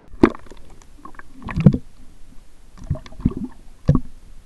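Water splashing and sloshing in a few short, irregular bursts as a brook trout is released by hand back into the pond, the loudest splash about one and a half seconds in.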